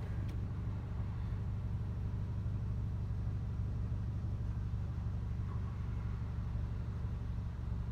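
Mitsubishi Lancer engine and exhaust, fitted with headers and with the muffler removed but the catalytic converters kept, giving a steady low drone under light, even throttle with no revving.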